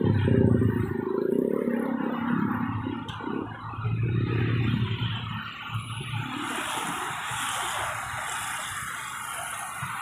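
Road traffic going past: a vehicle's low engine rumble for the first few seconds, then a steady wash of traffic noise.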